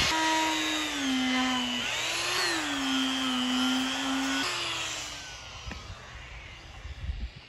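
Corded electric die grinder with a concave eye cutter bit running, its whine dropping in pitch twice as the bit is pressed into the wood to cut the carving's eye sockets. About four and a half seconds in it is switched off and spins down.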